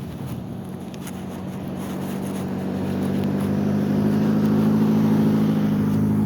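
A car driving past with a steady engine hum that grows louder as it approaches, loudest near the end.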